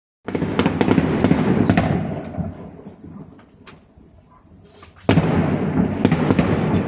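Salute fireworks bursting overhead in a dense run of booms and crackles that fades over about three seconds, then a few lone cracks, then another loud barrage breaking out suddenly about five seconds in.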